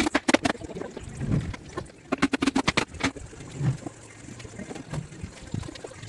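Plywood panels knocking and clattering as they are handled and stood together on a concrete floor: a quick rattling run of taps at the start and another about two seconds in, with a few dull thuds between.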